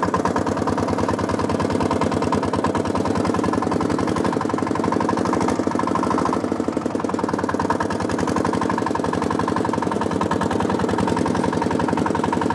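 Homemade mini tractor's small engine running steadily as the tractor is driven, with a fast, even pulsing beat.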